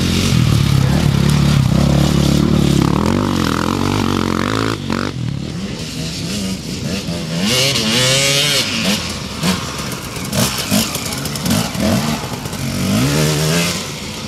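Enduro motorcycle engines. For the first five seconds one bike runs loud and steady close by. After an abrupt break, engines rev up and down repeatedly as riders work the throttle climbing the dirt course.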